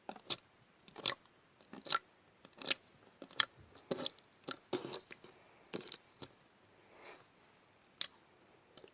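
Homemade slime being squished and worked by hand, giving irregular wet clicks and pops, one or two a second.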